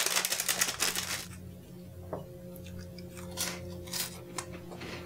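Crisp cracker crunch for about the first second as a cracker loaded with cheese ball is bitten into, then only a few faint chewing clicks over a steady low hum.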